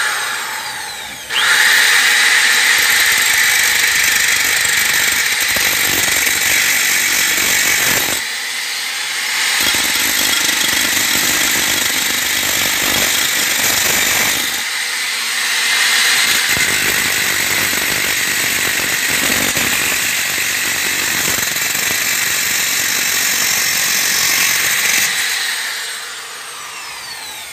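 Abrasive cut-off disc driven by a small 2,800 RPM corded drill, grinding through an iron rod: a harsh, hissing grind that eases off twice and fades near the end as the disc is lifted clear. The cut goes slowly because of the drill's low speed and the unclamped rod.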